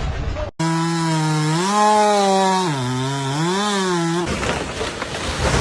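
Chainsaw engine running at high revs while cutting, its pitch dropping as it bogs down under load about two and a half seconds in, then rising again. It cuts off abruptly about four seconds in, giving way to a noisy hiss.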